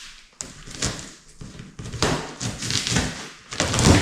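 Cardboard shipping box and packaging being opened and handled: irregular scraping and crinkling surges with a sharp knock near the start.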